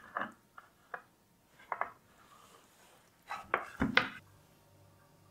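A spatula scraping and knocking against a metal pot and a ceramic plate as a whole baked chicken is slid out onto the plate. A few light knocks come first, then a busier run of scrapes and knocks about three and a half seconds in.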